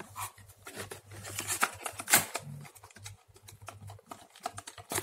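Plastic blister packs clicking, crinkling and tapping as they are handled and shuffled, with the loudest rustle about two seconds in, over a faint low hum.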